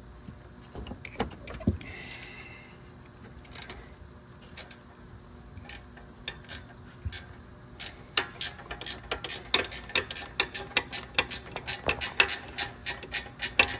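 Ratcheting wrench clicking as motor mount bolts are backed out: a few scattered clicks at first, then a quick run of several clicks a second from about eight seconds in.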